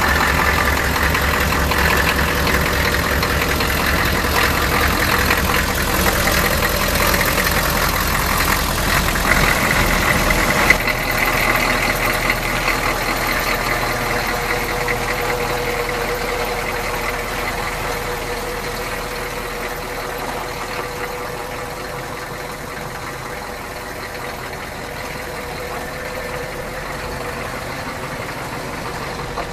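Oldsmobile 350 diesel V8 idling with diesel clatter, heard close to the car. About ten seconds in, the sound changes to the same engine heard from farther off as the car pulls away, slowly fading.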